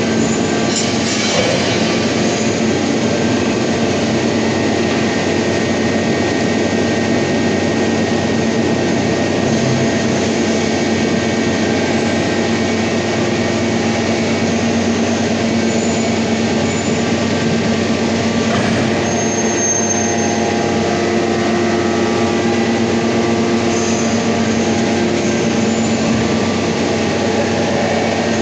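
Loud, steady industrial machinery noise with a constant droning hum and no distinct strikes.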